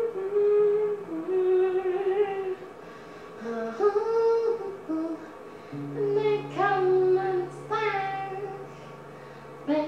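A boy singing in a high voice, holding long notes that bend in pitch, with a nylon-string classical guitar under him. A chord rings steadily through the second half.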